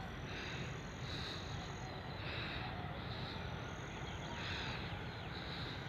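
Outdoor evening ambience: a steady hiss with short, high animal calls repeating about once a second.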